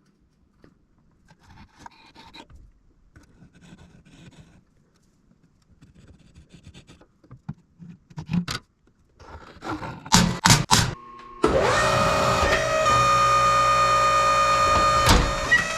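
Faint rubbing and scraping with a few sharp clicks as a part is handled, then about two-thirds of the way through the Vevor HD10 welding positioner's geared drive motor starts and runs with a steady whine.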